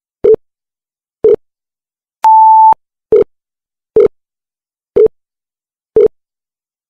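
Countdown timer sound effect: a short tick about once a second, with one steady half-second beep a little over two seconds in.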